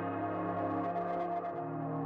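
Slow ambient background music of held chords; the bass note shifts about one and a half seconds in.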